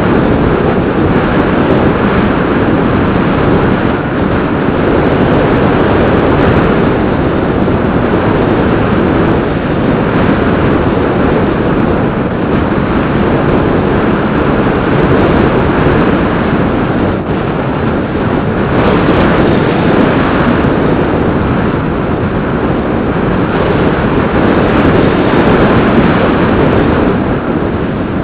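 Loud, steady rush of wind and propeller noise picked up by the camera riding on a Bixler 2 electric RC foam plane in flight.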